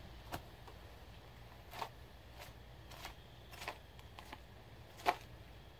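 Quiet knife-and-hand work on a hanging deer carcass as the front shoulder is cut free of the body: scattered soft clicks and rustles, the sharpest about five seconds in, over a faint low hum.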